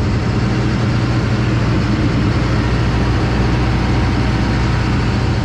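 John Deere 9770 combine's engine and harvesting machinery running steadily, a constant low hum under an even mechanical rush.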